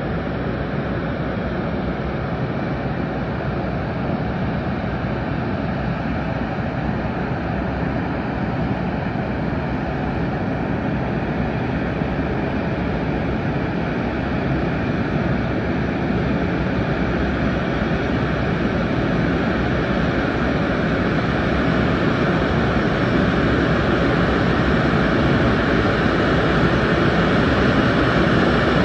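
Qantas Airbus A380-800's four Rolls-Royce Trent 900 turbofans running at taxi power, a steady jet noise that grows gradually louder as the airliner taxis toward the microphone.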